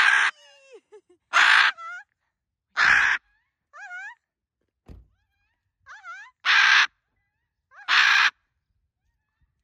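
A free-flying pet parrot screeching: five loud, harsh screams, each under half a second, with fainter hooked whistling calls in between.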